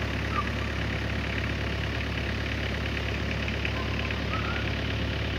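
Steady low rumble of a vehicle engine idling, unchanging throughout, with a few faint short higher sounds over it.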